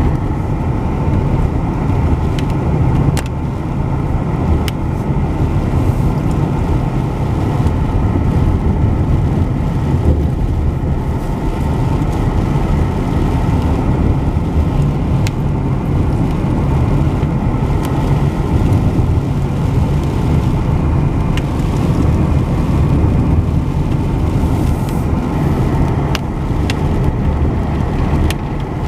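Road noise heard from inside a moving car: a steady low rumble of engine and tyres on a bumpy road, with scattered small clicks and knocks.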